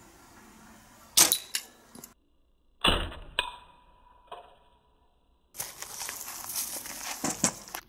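Flymars hunting slingshot rifle fired: a sharp snap of the rubber bands releasing about a second in, with a few small clicks after it, and a second loud crack with a thud about two seconds later. Near the end, footsteps rustling through dry grass.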